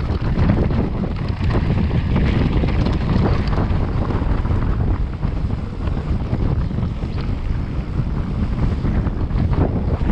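Wind buffeting the action camera's microphone during a fast mountain-bike descent: a steady loud rumble, with the electric mountain bike's tyres and frame rattling over a rough rocky and dirt track.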